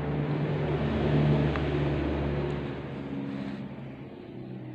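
Motor vehicle engine running. It grows louder over the first second or so and fades after about two seconds, like a vehicle passing by.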